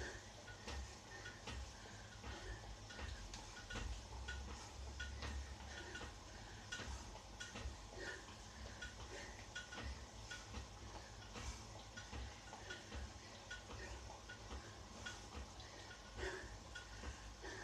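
Indoor spin bike being pedalled: faint rhythmic ticking, about two ticks a second, with scattered clicks and a low rumble.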